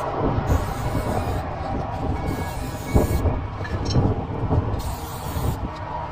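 Aerosol spray paint can hissing in short bursts with brief pauses between them, over a steady low rumble, with a few soft knocks about three and four seconds in.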